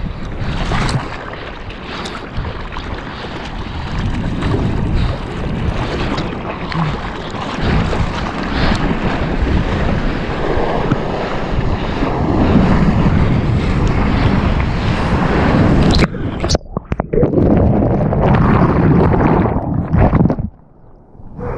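Water splashing and rushing against a surfboard's nose as it moves through choppy water, with wind buffeting a GoPro's microphone. About three-quarters of the way through the sound starts cutting in and out, and near the end it drops away and goes muffled as the camera is plunged into the water.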